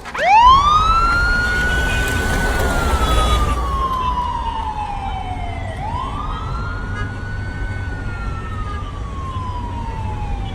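Police vehicle siren wailing. Each cycle rises quickly, holds briefly, then slides slowly down over about three seconds; the first cycle starts at the beginning and the second about six seconds in. A low engine rumble runs underneath.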